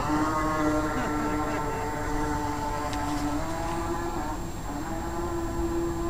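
Small motor of a remote-control toy boat whining as the boat runs across the water; the whine starts abruptly and steps up a little in pitch partway through.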